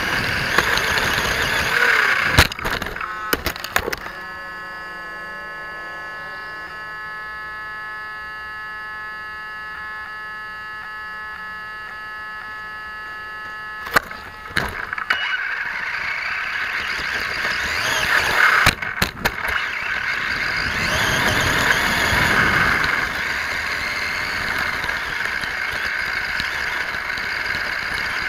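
Onboard sound of a Vaterra Twin Hammers electric RC rock racer driving over dirt and gravel: rushing and rattling, with a cluster of knocks about two to four seconds in. Then a quieter steady whine of several tones holds for about ten seconds while the car sits stuck facing into the dirt, broken by a sharp knock. The car drives on with louder rushing noise and a few more knocks.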